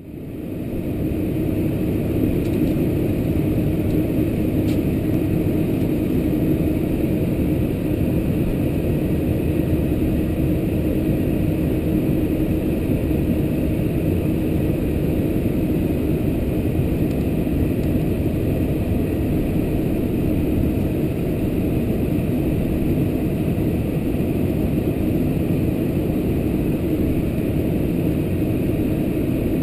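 Cabin noise inside a Boeing 747-400 taxiing, its General Electric CF6-80C2 engines at low taxi thrust: a steady drone heard from a window seat over the wing, fading in over the first second or so.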